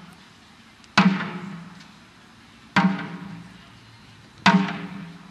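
Taiko drum (chu-daiko barrel drum with tacked heads) struck hard with wooden bachi sticks: three single, evenly spaced booming hits, each ringing out and dying away before the next.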